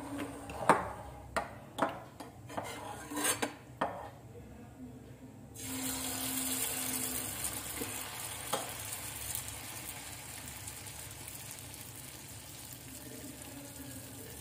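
A steel slotted spoon clinks and knocks against the kadai several times. About five and a half seconds in, malpua batter hits the hot oil and starts to sizzle and bubble, a loud hiss that slowly dies down as the malpua fries.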